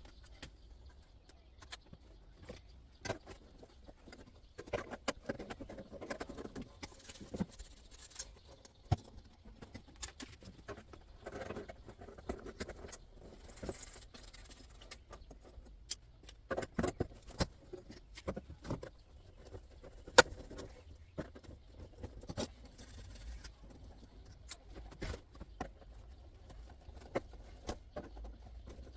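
Irregular metallic clicks, taps and scraping of bolts being loosened with pliers and unscrewed by hand from the steel back of an electric hob, with one sharp knock about twenty seconds in.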